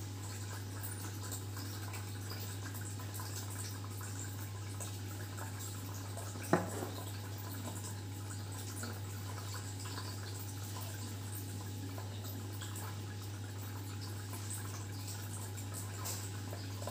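Steady low hum with faint hiss, and a single sharp tap about six and a half seconds in.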